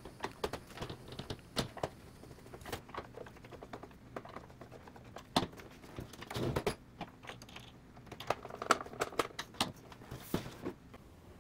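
Light scattered clicks and taps of a hand screwdriver driving the bottom-case screws back into a TRS-80 Color Computer, then a screwdriver laid on the table and the computer's case handled and tilted up, with a few louder knocks in the second half.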